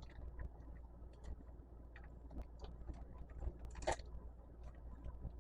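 Faint, scattered clicks and light taps of small plastic and metal cable connectors being handled, with one louder brief scrape about four seconds in.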